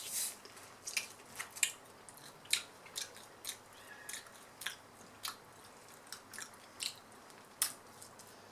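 Mouth sounds of a person eating curry: wet chewing with sharp smacks and clicks, irregular, about two a second.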